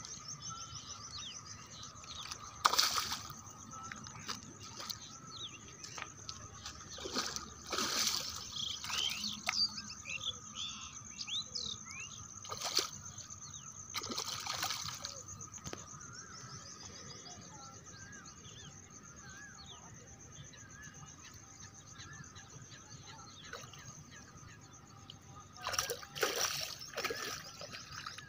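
A hooked fish thrashing and splashing at the surface at the water's edge, in several separate bursts, the last ones near the end after a calmer stretch. Birds chirp faintly in the background.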